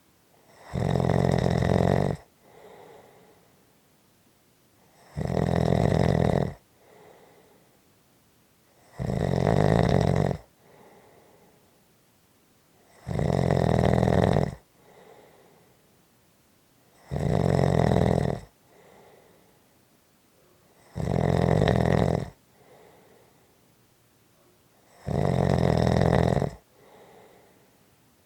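Steady rhythmic snoring of a sleeper: seven loud snores about four seconds apart, each lasting about a second and a half, each followed by a soft breath out.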